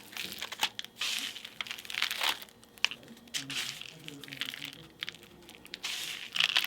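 Loose bird seed rustling and crunching on a paper plate as a peanut-butter-coated cardboard tube is pressed and rolled in it, in irregular scratchy bursts.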